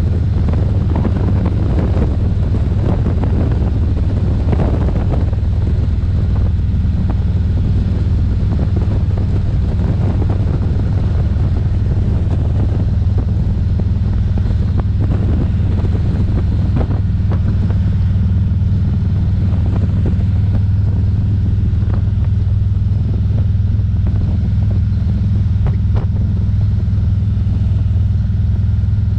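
Large cruiser motorcycle's engine running steadily at cruising speed, a constant low hum, with wind noise over the microphone.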